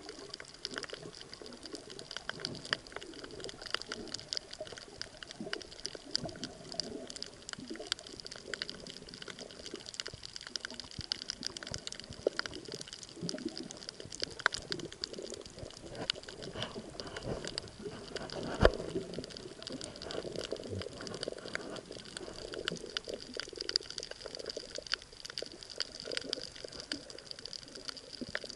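Underwater reef ambience: a continuous dense crackle of tiny clicks, typical of snapping shrimp, over a low watery murmur, with one sharper, louder click about two-thirds of the way in.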